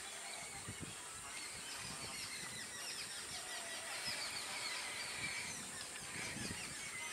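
Trackside outdoor ambience: birds calling in many quick, high, falling chirps, thickest in the middle, over a steady high hiss and a low rumble.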